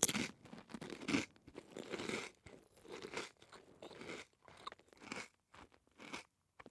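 A person's mouth biting into crunchy food and chewing it, crunch after crunch, about one a second. The chews get gradually fainter as the food breaks down.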